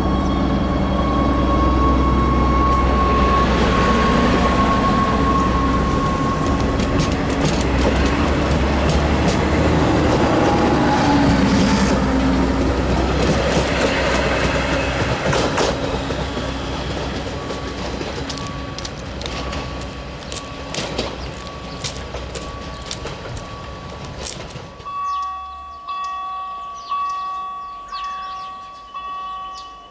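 Stadler GTW 2/6 metre-gauge diesel railcar running loud at the platform, its engine rising in pitch, with many sharp clicks of wheels over rail joints. About five seconds before the end this gives way to a level-crossing warning bell ringing in repeated strokes about once a second.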